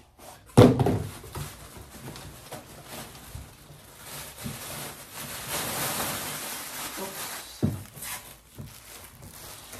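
Unpacking sounds: a loud thud about half a second in as a foam-lined cardboard packing tray is put down, then plastic wrapping rustling and crinkling as it is pulled out of the box, with another knock near the end.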